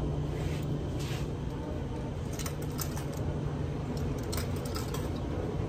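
Coins clicking into a coin-operated dryer's slot one at a time, as a scatter of faint, irregular clicks over the steady hum of laundromat dryers running.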